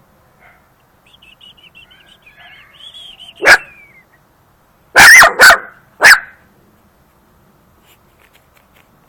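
German hunting terrier (Jagdterrier) puppy giving a wavering high-pitched whine, then barking four times, loud and sharp, the first bark alone and three more in quick succession about a second and a half later.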